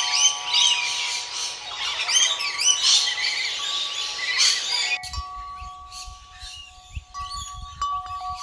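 Birds chirping busily over soft, chime-like background music. About five seconds in, the bird calls drop away abruptly, and wind rumble on the microphone takes over beneath the music, with only faint chirps.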